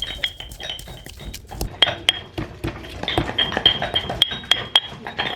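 Irregular knocks and clinks of kitchen utensils during food preparation, several a second, many strikes with a short high ringing ping.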